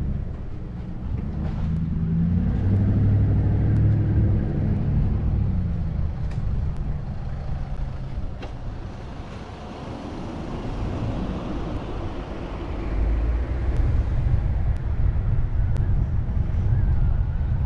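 A car being driven, with engine and road noise. The engine note swells for a few seconds near the start, eases off in the middle, then a heavier low rumble comes back in the last few seconds.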